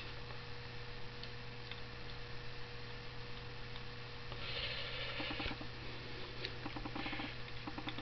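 Small brass Oberdorfer gear pump handled and worked by hand, giving faint, rapid ticking in the second half, over a steady electrical hum.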